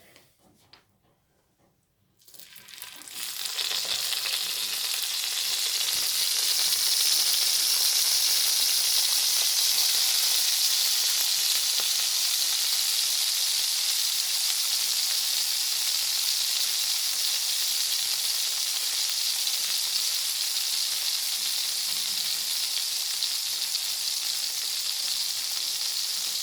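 Bologna slices frying in hot oil in a pan, a steady loud sizzle. It starts about two seconds in after a near-silent moment and builds up over the next second or two.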